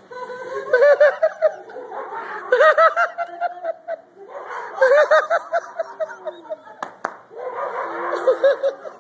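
A person laughing uncontrollably in repeated high-pitched giggling bursts, each a quick run of bouncing 'ha-ha' notes, returning every two seconds or so: ecstatic 'holy laughter' at a charismatic revival meeting. A sharp click sounds about seven seconds in.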